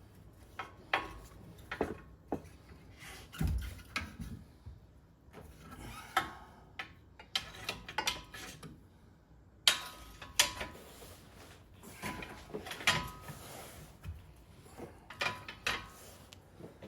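Irregular metallic clanks and knocks of hand tools against steel suspension parts, about a dozen sharp hits, some with a brief metallic ring.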